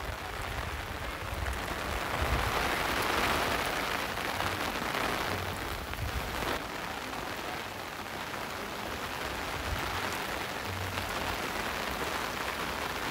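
Heavy rain falling steadily, a dense hiss of drops, swelling a little about two to four seconds in.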